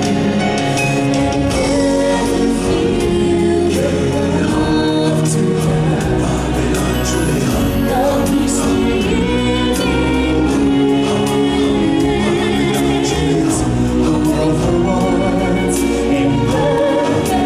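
Stage-show music: a choir of voices singing over a full instrumental backing with regular drum hits.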